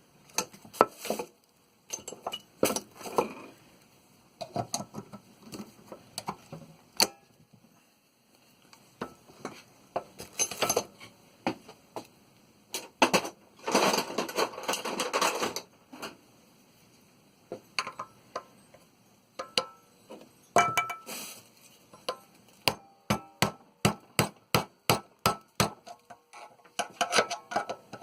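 Hand tools knocking and scraping against a metal pressure relief valve as it is pierced and pried apart: sharp metallic taps and clinks, a few seconds of scraping about halfway, and a quick run of evenly spaced taps near the end.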